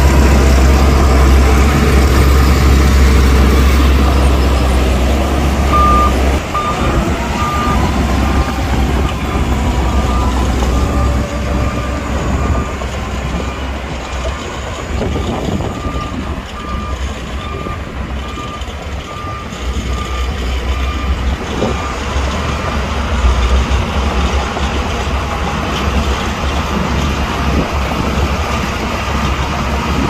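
Bulldozer's diesel engine running under load. From about six seconds in, its reversing alarm beeps at an even pace for some fifteen seconds as the machine backs up, while the engine eases off.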